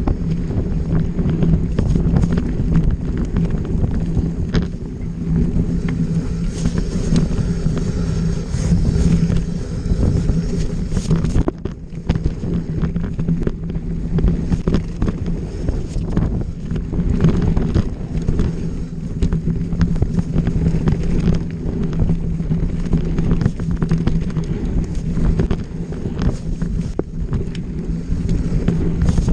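Enduro dirt bike engine running steadily on the throttle, with wind buffeting the microphone; the engine eases off briefly about eleven seconds in.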